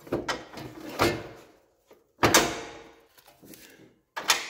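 Heavy steel parts of a John Deere 31 tiller's hitch bracket clanking against the garden tractor's mounting studs as the tiller is worked into place and clipped on: four metal knocks and clunks, the loudest a little past two seconds in, each ringing briefly.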